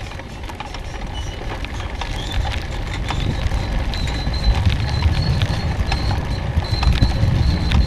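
Wind buffeting the microphone and tyre noise on pavement from a moving bike, with many small rattling clicks, growing louder as it picks up speed. A thin, high squeak comes and goes from about four seconds in.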